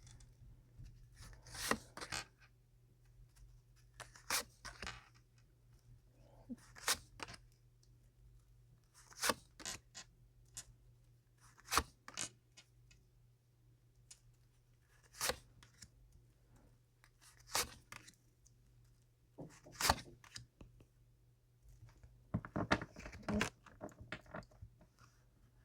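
Tarot cards being handled and laid down: short, crisp rustles and snaps of card stock every two to three seconds, with a longer run of rustling about three-quarters of the way through.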